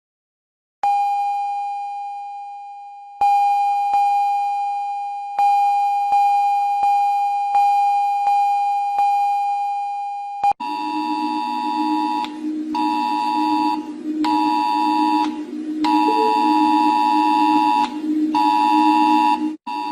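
Electronic emergency alert tones. A steady chime-like tone is struck and left to fade, twice a couple of seconds apart, then about every two-thirds of a second. About halfway through it gives way to a harsh two-pitched alarm tone that sounds in bursts of one to two seconds with short breaks.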